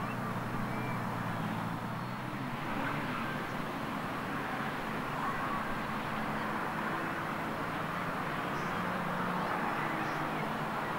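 Steady low drone of a container ship's engine under way, a constant hum over a broad hiss.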